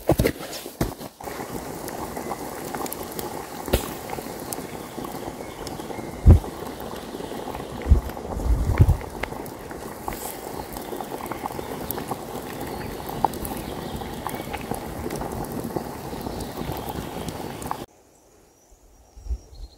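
Log campfire burning with a steady crackle, and a lidded pot on it at the boil, with a few low thumps midway. Near the end the sound drops abruptly to a much quieter background.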